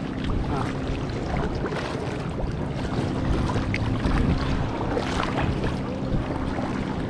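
Kayak paddles dipping and splashing beside an inflatable tandem kayak, with water lapping and wind on the microphone. A steady low hum runs underneath.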